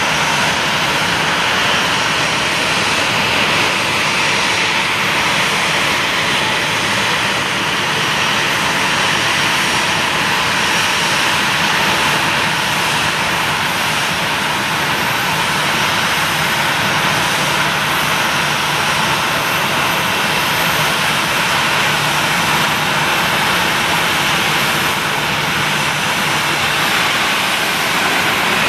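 Boeing 737-800's twin CFM56-7B jet engines running as the airliner taxis, a steady loud rushing hiss.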